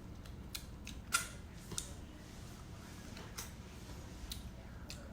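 Scattered sharp clicks and cracks of cooked king crab shell being broken and picked apart while eating, the loudest about a second in.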